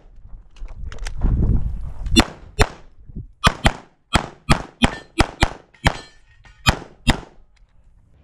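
Walther PDP Steel Frame pistol fired in a fast string of about a dozen shots, in quick pairs and singles roughly a third of a second apart, during a USPSA Carry Optics course of fire. A low rumble runs under the first two seconds, before the shooting resumes.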